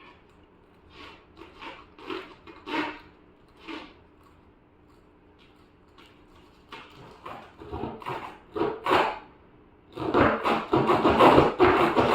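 Tire plug kit's steel reaming tool being pushed in and out of a tubeless tire's puncture, rasping against the rubber to clean out the hole for a plug. Single strokes come about every half second at first, then rapid continuous strokes in the last two seconds are the loudest part.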